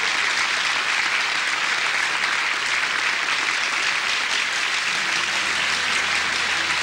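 Audience applauding steadily. About five seconds in, held low notes from the orchestra start beneath the clapping as the music begins.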